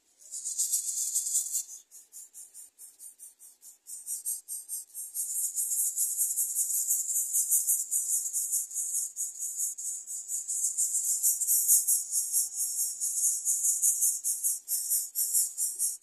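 Greater coucal nestlings begging for food from the parent at the nest: a high, rapid, raspy chatter that starts abruptly, thins out for a couple of seconds, then runs on dense and loud.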